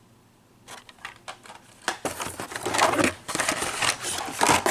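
Blister-packed toy cars being handled, their plastic and cardboard packaging clicking and clacking, then crinkling and rustling densely from about two seconds in.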